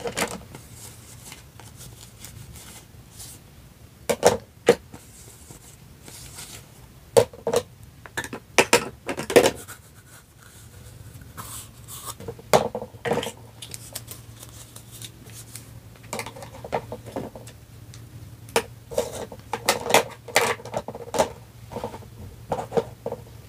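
Small plastic toy dishes (cups, plates, a fork and spoon) clicking and knocking as they are lifted out of a plastic toy dish rack and set down on a plastic sink tray, in scattered clusters of light knocks with pauses between.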